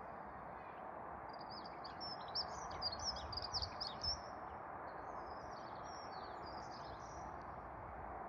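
Small birds chirping, a quick run of short high twittering notes starting about a second in, over a steady outdoor background hiss.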